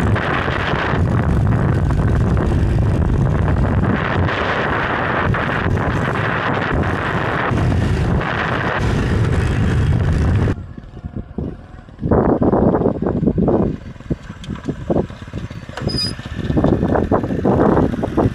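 Heavy wind rush on the microphone while riding a Honda Pridor 100 motorcycle along a road, with the bike running under it. It cuts off about ten seconds in, and irregular gusts of wind hit the microphone after that.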